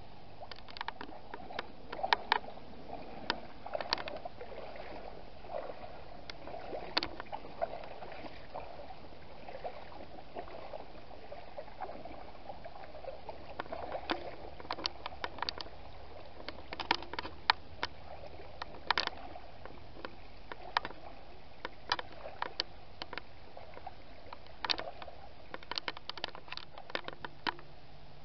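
Tall rubber riding boots wading through a shallow brook: irregular splashes and sloshes with each step, some much sharper than others.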